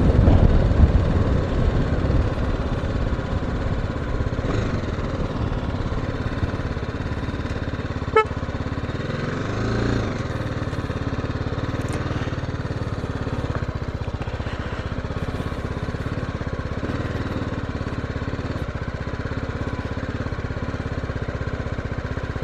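BMW G310GS's single-cylinder engine running at low, steady revs as the motorcycle is ridden along a dirt trail, louder for the first couple of seconds before settling. A single sharp click comes about eight seconds in.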